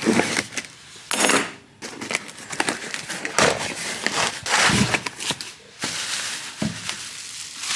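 A repair stand's box and packaging being opened and handled: irregular rustling, crinkling and scraping with a few sharp knocks.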